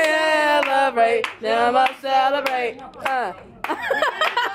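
A group of people singing together and clapping their hands, with a short lull about three seconds in.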